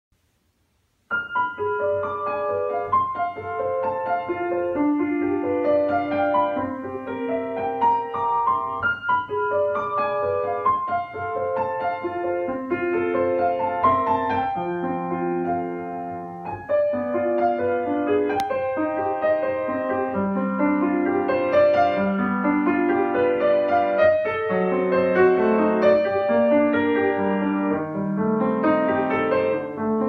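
Steinway & Sons grand piano played solo, starting about a second in: a classical piece of quick, flowing runs of notes.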